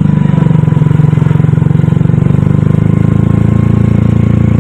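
Auto-rickshaw engine running steadily with a fast, even chugging pulse while the three-wheeler drives along, heard loud and close from inside the cab.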